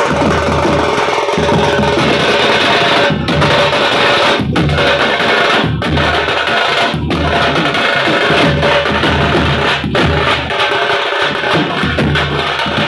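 A street drum band of several stick-beaten drums, including a large bass drum, playing a fast, loud rhythm together, with a short break in the beat about every second and a bit.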